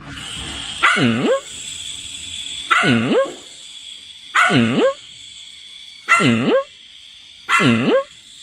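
A dog barking five times at an even pace, about one bark every second and a half, each bark dipping and rising in pitch, over a steady high hiss.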